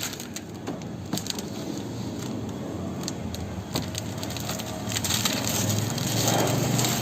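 Old tint film being peeled off a car window: a continuous crackling, tearing sound, a little louder near the end.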